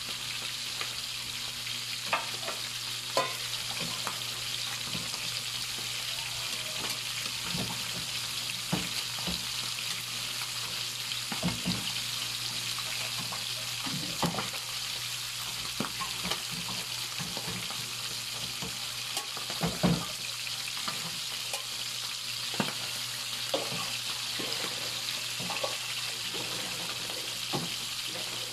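Salmon head pieces frying in hot oil in a pan: a steady sizzle with scattered sharp pops of spattering oil every second or two, the loudest about two-thirds of the way through.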